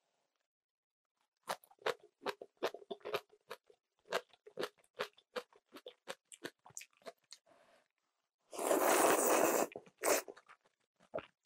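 Crunchy chewing of napa cabbage kimchi, a quick run of crisp crackles for several seconds. About eight and a half seconds in comes a loud slurp of kalguksu noodles lasting about a second, followed by a few more chewing sounds.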